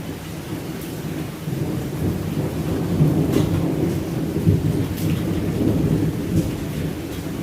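Steady rain with a long, low rumble of thunder that builds about a second and a half in, is loudest through the middle, and eases near the end.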